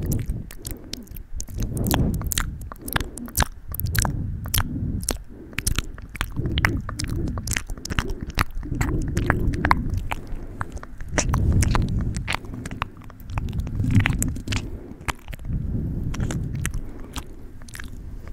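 Wet ASMR mouth sounds close to the microphone: many quick tongue and lip clicks and smacks over uneven, muffled low swells.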